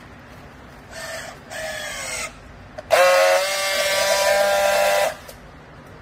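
Battery-powered handheld plastic strapping tool on a bale strap: two short motor whirs that fall in pitch as it pulls the strap tight, then a louder steady whine for about two seconds as it seals the strap, cutting off sharply.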